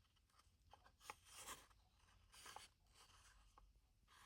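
Near silence with faint rustling and a few soft clicks, small metal jeweller's anvil inserts being handled.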